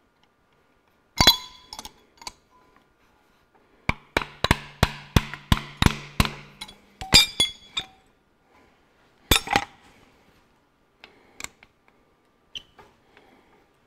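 Small hammer tapping metal on a fuel injector of a Ferguson 23C four-cylinder diesel engine, jarring an injector that is rusted in a little: a sharp clink about a second in, a quick run of about eight taps around the middle, then a few more scattered strikes.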